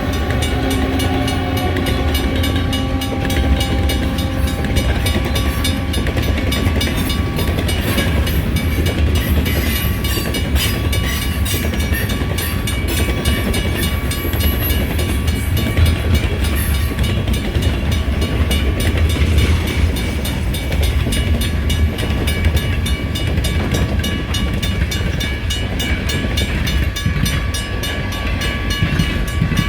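Freight train rolling through a grade crossing with a steady low rumble, while the crossing bell rings on at an even rhythm. A lower engine tone dies away in the first few seconds.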